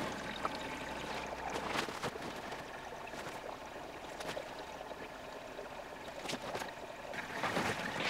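Water running into an LG front-loading washing machine's drum during the fill stage of its diagnostic test. It is a faint, steady rush with a few light clicks.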